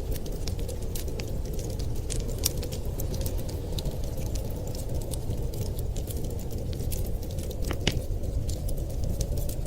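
Wood fire crackling in a fireplace, with irregular sharp pops and one louder pop about eight seconds in, over the steady low rumble of blizzard wind.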